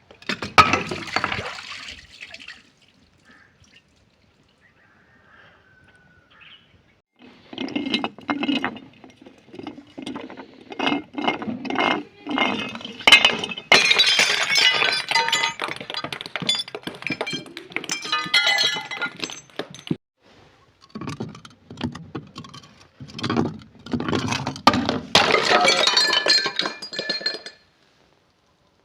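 Glass bottles being crushed and broken: crunching and shattering with clinking of glass pieces. A short burst comes first, then a few quiet seconds, then two long runs of rapid crunching separated by a brief pause about two-thirds of the way through.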